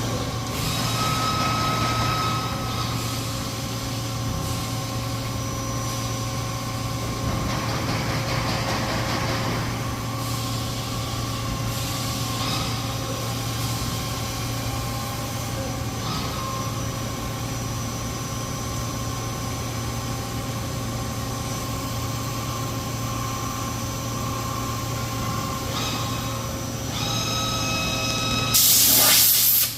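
AWEA LP-4025Y double-column CNC machining centre running: a steady low hum with several steady whining tones that start and stop, and some noisier passages. Near the end there is a loud hiss, about a second long.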